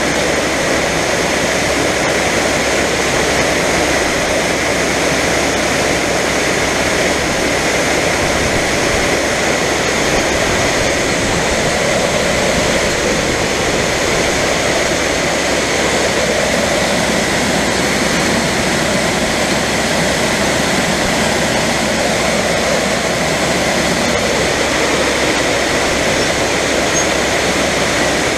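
Heavy farm machinery running steadily at harvest: a loud, even mechanical rush with steady whining tones and no change in speed.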